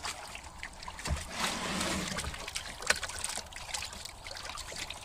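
Water splashing and sloshing in a plastic bin as a large carp is put in and thrashes. A dull thump about a second in, then a couple of seconds of splashing, then lighter drips and slaps.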